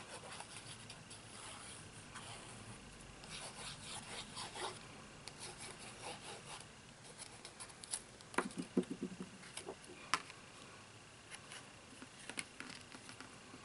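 Sponge tip of a liquid glue bottle rubbed back and forth over the back of a sheet of cardstock paper: a faint, scratchy rubbing. Around eight to ten seconds in come a few light clicks and knocks as the paper is handled.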